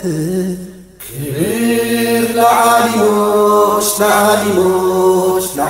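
Amharic Islamic nasheed sung by a male voice. After a short break about a second in, the word 'kibir' ('honour') is drawn out in long held notes at the start of the refrain.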